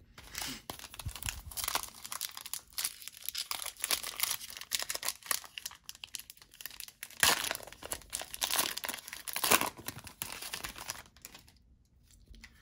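Foil wrapper of a 2011-12 Panini Contenders hockey card pack being torn open and crinkled by hand, a dense crackling that is loudest about seven seconds in and again near nine and a half.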